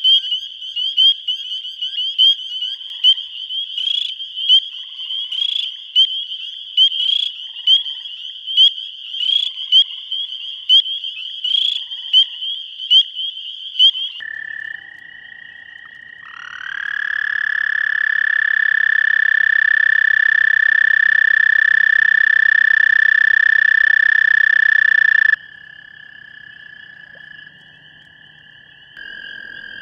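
Spring peeper chorus: a dense run of high, piping peeps, with one close peeper calling about every 0.8 s. After about 14 seconds it gives way to an American toad's trill, a long, steady, high musical trill that swells in and holds for about nine seconds before stopping abruptly, leaving a fainter toad trill behind it.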